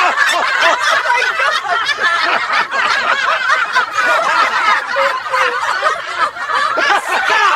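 Hearty, continuous laughter from several overlapping voices, reacting to a joke.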